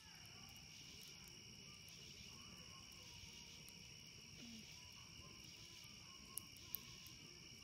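Faint, steady chorus of crickets at night, with two sharp pops from the crackling campfire about six and a half seconds in.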